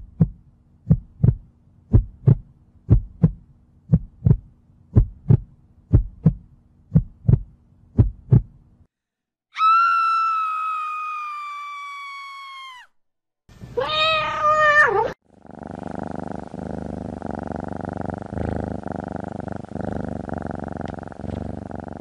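Heartbeat sound effect: regular lub-dub pairs of low thumps, about one pair a second, stopping about nine seconds in. Then comes a long pitched call that slowly falls in pitch, a short warbling call, and from about fifteen seconds on a low, pulsing rumble.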